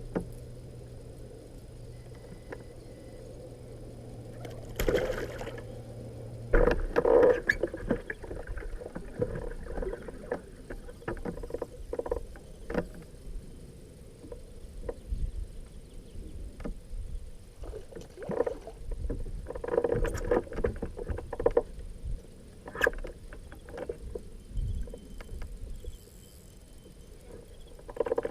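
Irregular knocks and clatter of gear being handled in a fishing boat. A steady low hum underneath cuts off about six and a half seconds in.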